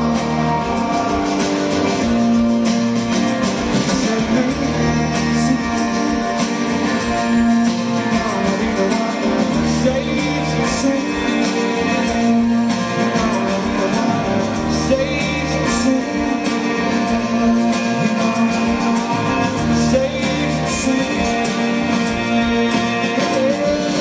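Live rock band playing: strummed acoustic guitar with electric guitar and drums, and a voice singing over them.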